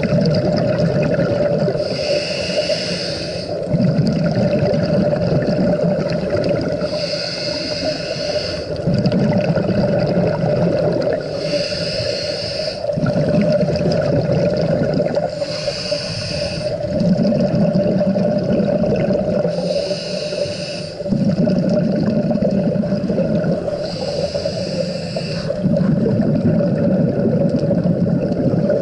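Scuba diver breathing through a regulator underwater: a short, high hiss on each inhale followed by a longer, low bubbling exhale, about one breath every four seconds. A steady drone sits underneath.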